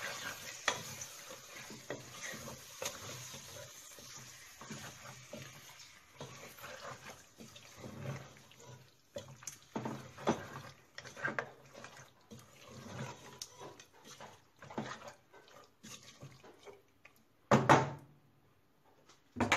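Wooden spoon stirring beef pieces through wet spice paste in a pot, with irregular scrapes and knocks against the pot and a light sizzle at first. One louder knock comes near the end.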